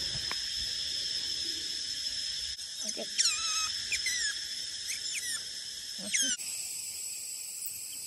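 Otter giving a run of short, high-pitched squeaking chirps, each falling sharply in pitch, from about three seconds in until about six seconds, over a steady high whine in the background.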